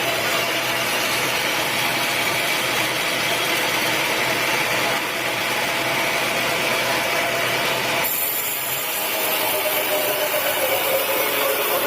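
Sawmill saw running steadily through a teak log, with a constant whine over the cutting noise. The sound changes abruptly about eight seconds in.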